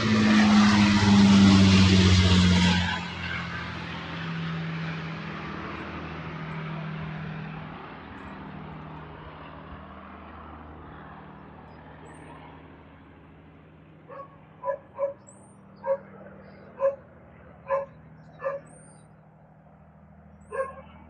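Avro Lancaster's four Rolls-Royce Merlin piston engines droning loudly overhead, dropping away sharply about three seconds in and then fading as the bomber flies off. In the last seven seconds come about eight short, sharp animal calls, with a few faint high bird chirps.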